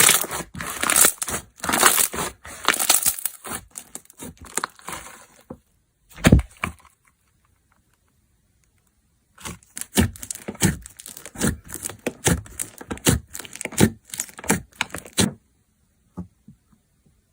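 Slime being played with by hand: a dense run of crackling clicks for about five seconds, a single dull squish, a pause, then a string of separate sharp pops and clicks, two or three a second, that stops a few seconds before the end.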